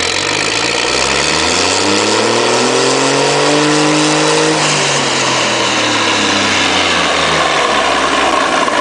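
Hino K13C inline six-cylinder turbo engine, converted from diesel to run on CNG with spark ignition, revved up and let fall back to idle: the pitch rises steadily for about four seconds, then drops back over the next three or four.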